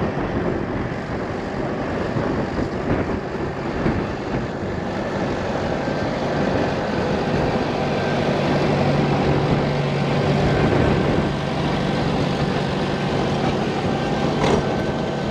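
Tractor engine running steadily under load while ploughing, with a low engine note that comes up about halfway through.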